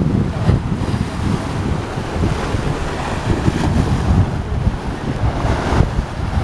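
Small waves breaking and splashing against a sloping concrete seawall, under heavy wind buffeting the microphone with an uneven rumble. The splashing is a little stronger near the end.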